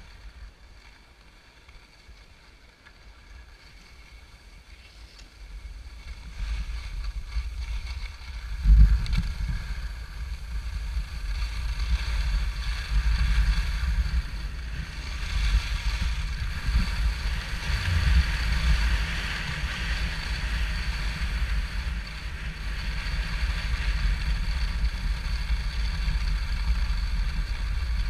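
Wind buffeting the microphone and skis hissing over groomed snow, starting quiet and building about six seconds in as the skier gathers speed downhill, with a single thump near nine seconds.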